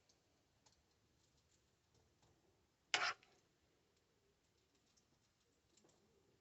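Near silence broken about three seconds in by one short, sharp click or knock, with a few faint ticks around it.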